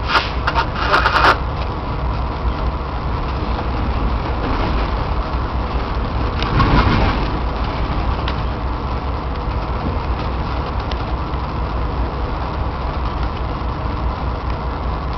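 GE Dash 9 diesel locomotive running under way, heard from the cab: a steady engine rumble mixed with wheel-on-rail noise, with brief louder noises about a second in and again midway.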